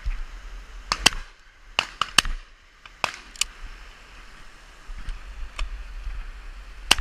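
Shotguns firing at high-flying partridges: about ten shots in quick succession, some near and some farther off, the loudest about a second in and just before the end.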